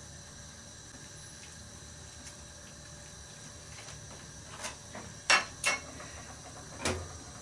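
Four short clicks and knocks of kitchen utensils being handled and set down on a worktop in the second half, over a faint steady hum.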